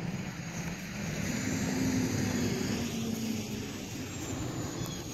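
Steady whir of a small electric motor and propeller, its pitch drifting up and down a little, with a faint high whine.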